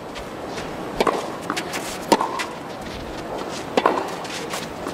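A tennis ball being bounced on the court by the server before a serve: a few short, sharp knocks, about a second in, just after two seconds and twice in quick succession near four seconds, over a low, steady background hum.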